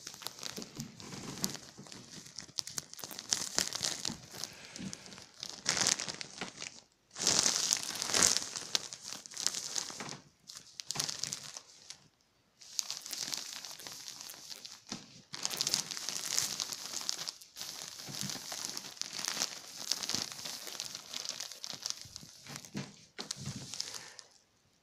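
Clear plastic pillow packaging crinkling and rustling as a ferret crawls around inside it. The crinkling comes in irregular bouts with short pauses and stops just before the end.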